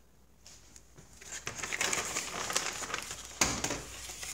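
Irregular rustling and crinkling as a border collie puppy shifts about on the blanket and tray of its wire crate, starting about a second in, with one sharp knock about three and a half seconds in.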